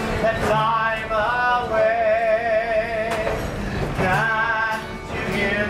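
A man singing a railroad song and strumming an acoustic guitar. He holds a long, wavering note about two seconds in and starts another just before the end.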